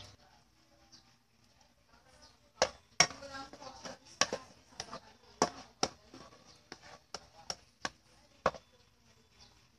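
Spatula clacking and scraping against a nonstick frying pan while stirring minced garlic in butter: about a dozen sharp, irregular knocks roughly half a second apart, starting a couple of seconds in.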